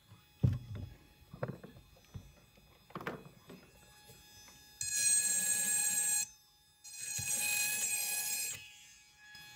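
A handheld high-speed rotary grinder runs with a steady high-pitched whine in two runs of about a second and a half each, in the second half, grinding a window on a jadeite rough. Before that come a few short knocks and thumps as the stone is handled.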